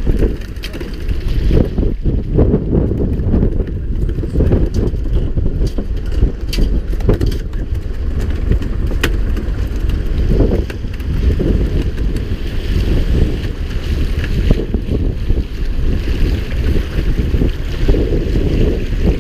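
Wind buffeting the microphone over the noise of a boat at sea, with a few light clicks and knocks scattered through it.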